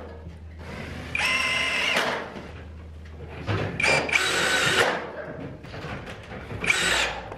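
Cordless drill driving screws into galvanized steel drywall studs and floor track: three short runs of the motor whine, about a second in, in the middle (the longest), and a brief one near the end.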